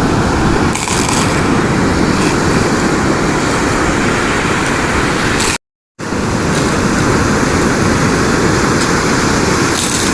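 Steady roar of ocean surf with wind buffeting the microphone, breaking off for a moment just past halfway.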